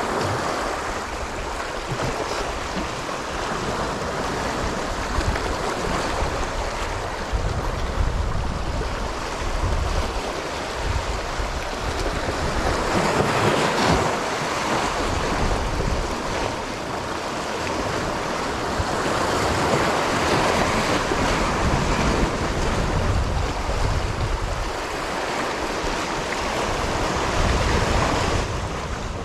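Sea waves washing against a rocky shore, a steady rush that swells louder every several seconds, with wind buffeting the microphone.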